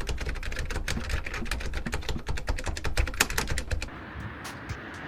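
Rapid, irregular keyboard typing clicks that stop about four seconds in, leaving a quieter steady background with a few stray clicks.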